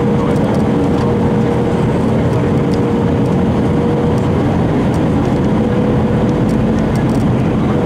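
Steady in-cabin drone of an Airbus A320 on final approach with flaps extended: engine noise and rushing airflow, with a steady tone running through it.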